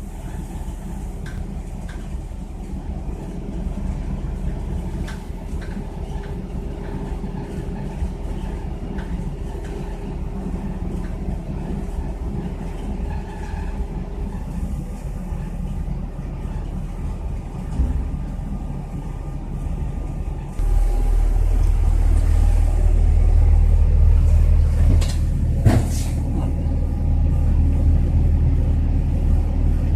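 Engine of an EMC40 rail draisine running with a steady low rumble. About two-thirds of the way through it suddenly gets louder and deeper, and a few knocks and a brief rising whine follow shortly after.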